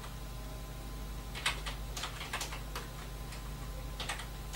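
Marker pen writing on a whiteboard: a few short scratchy strokes from about a second and a half in, and again near the end.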